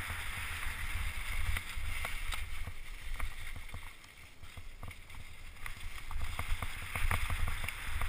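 Mountain bike riding fast down a dirt trail covered in dry leaves: steady wind rumble on the microphone, with tyre hiss over the leaves and many short rattles and knocks from the bike over bumps. It eases briefly around the middle.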